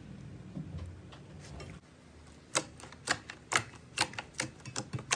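A series of sharp, irregular clicks or taps, about two a second, starting a little past halfway, over a low hum that drops away before the clicks begin.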